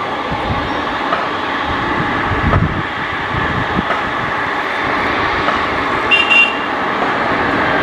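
Boeing 777 twin jet engines at low taxi power as the airliner turns onto the runway: a steady rumble with a faint whine. A brief high chirp sounds about six seconds in.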